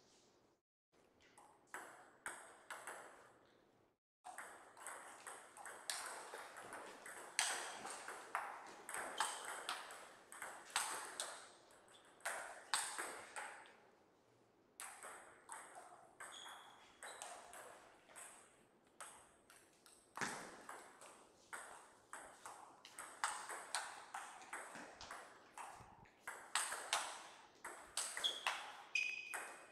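Table tennis rallies: the ball clicking in quick alternation off the paddles and the table, in two runs of play with a short pause between points in the middle.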